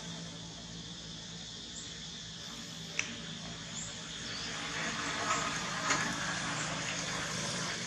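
Steady outdoor background hiss with a faint low hum, a single sharp click about three seconds in, and a few faint short high chirps.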